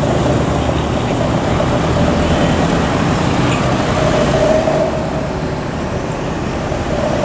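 Diesel engines of an intercity coach and a box truck running steadily at low speed as they pass close by, over general road traffic.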